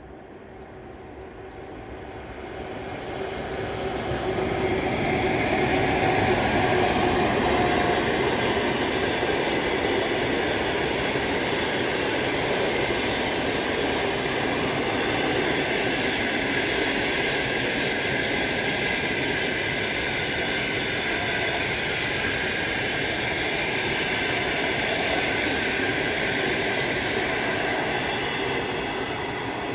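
EP1P electric locomotive and its passenger coaches passing on the line, growing louder over the first few seconds and then holding a steady, loud rumble and rush of wheels on rail, with several steady high whining tones over it.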